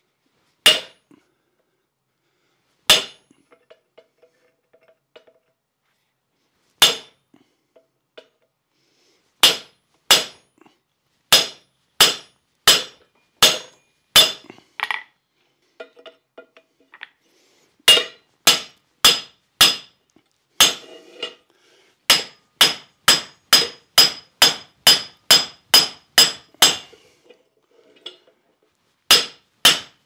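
Hand hammer striking a hand-held punch to drive it through a red-hot steel round bar over a slotted bolster on the anvil, each blow a sharp metallic strike with a short high ring. A few widely spaced blows at first, then quicker ones, then two steady runs of about two blows a second.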